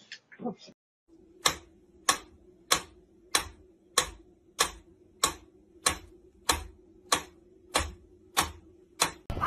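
Sharp ticks or taps repeating evenly, about three every two seconds, over a faint steady hum.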